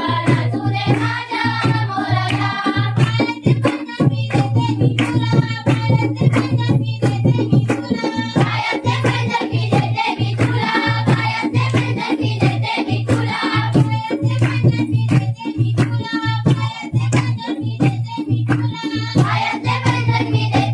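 Marathi folk song from the Konkan: a voice singing with vibrato over a steady, rhythmic drum beat.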